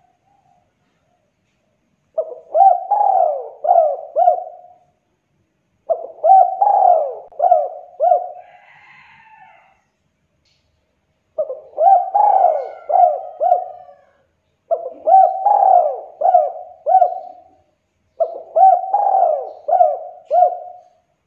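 Spotted dove cooing: five phrases of three or four rolling coos each, a second or so apart.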